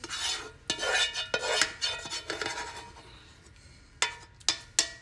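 A utensil scraping thick, creamy chili out of a dark non-stick pot into a glass baking dish, in several rough scraping strokes. Near the end come three sharp knocks.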